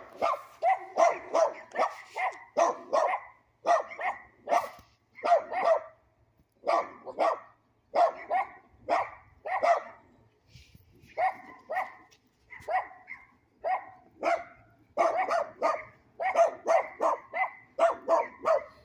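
A dog barking over and over, in runs of several sharp barks with short pauses between them.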